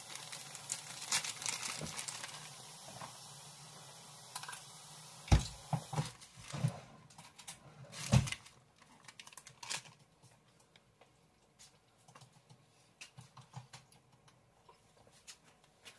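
Handling sounds of taco assembly: scattered light clicks and taps as shredded cheese is sprinkled from its bag onto a tortilla on a paper plate, with two louder knocks about five and eight seconds in. The last few seconds hold only sparse faint ticks.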